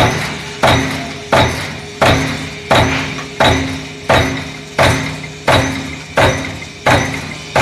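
J21S-630 mechanical punch press stamping sheet metal in continuous strokes: a sharp metallic bang about every 0.7 s, each ringing briefly and fading, over a steady machine hum.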